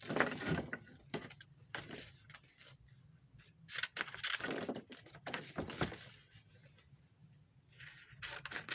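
Aluminium foil tape being cut and handled: irregular crinkling, tearing and light clicks in short bursts, with quiet stretches between.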